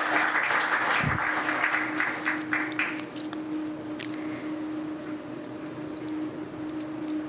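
Audience applauding at the end of a talk, the clapping dying away about three seconds in, leaving a steady low hum.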